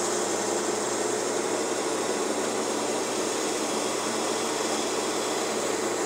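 Gryphon Zephyr ring saw running steadily, its water-cooled diamond ring blade grinding through a sheet of glass.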